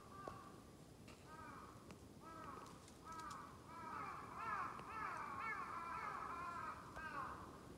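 Crows cawing, several birds giving short repeated calls, a few at first, then crowding and overlapping from about four seconds in.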